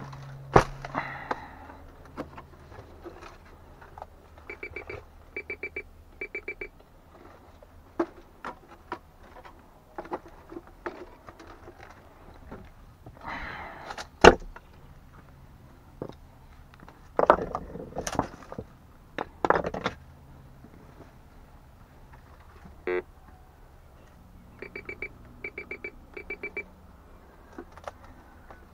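Metal detector beeping in quick trains of short, high pitched pulses, twice. Between the beeps, rocks clack and scrape as they are lifted and thrown aside, with a sharp knock about half a second in and the loudest knock about halfway through.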